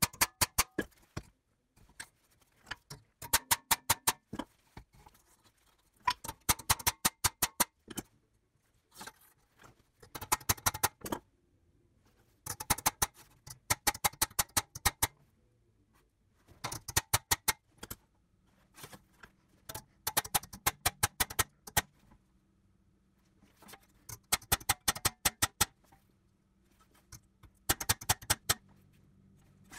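Hammer tapping the teeth of a steel crosscut saw against an anvil, setting the teeth: quick runs of sharp, ringing metal-on-metal taps, several to a run, repeated every two to three seconds with short pauses.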